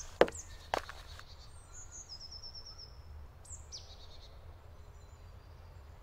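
Two sharp knocks in the first second, then faint songbird chirps over a low steady rumble, with a quick high trill of about eight notes around two seconds in and a short falling chirp a little later.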